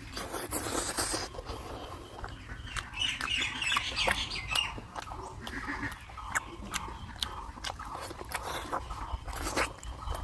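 Close-miked eating of pork curry: chewing with wet mouth clicks and smacks throughout. A brief bird-like chirping is heard about three to four seconds in.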